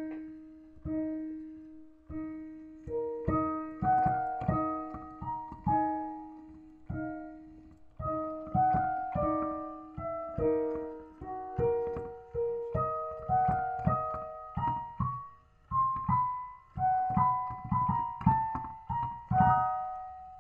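Solo piano music: one note repeated steadily under a melody, each note struck and fading away.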